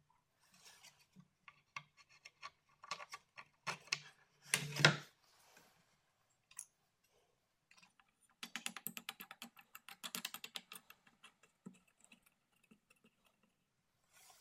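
Small metal hardware handled on a wooden jig: light clicks and scrapes of bolts and a wing nut against the wood. A single knock about five seconds in is the loudest sound, and from about eight to eleven seconds comes a run of fast, close clicking as a nut is worked onto a bolt.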